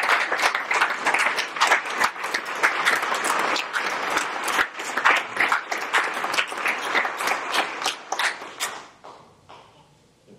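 Audience applause, many hands clapping together, dying away about nine seconds in.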